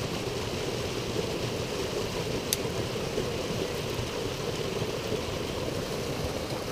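Small jungle stream running over rocks: a steady rushing, with one short click about two and a half seconds in.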